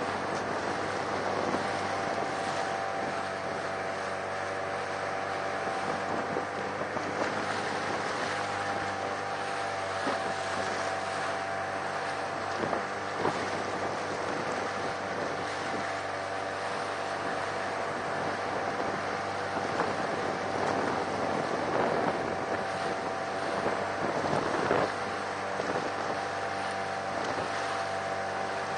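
Steady hum of a boat engine underway, with water rushing along the hull and wind buffeting the microphone in short gusts.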